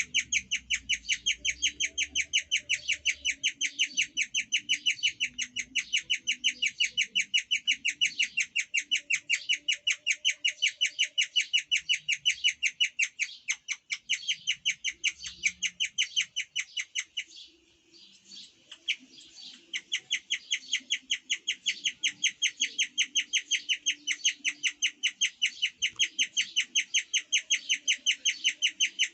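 Guinea pig chirping: a long, even run of high, bird-like chirps at about four a second. It breaks off for a second or two a little past halfway, then starts again.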